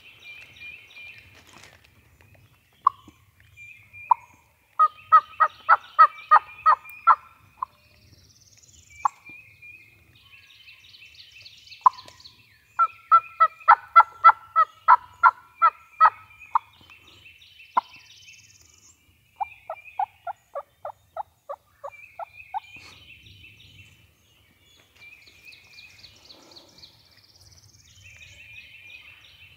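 Turkey calling in three long runs of loud, evenly spaced notes, about four a second. A songbird sings short high phrases between and over them.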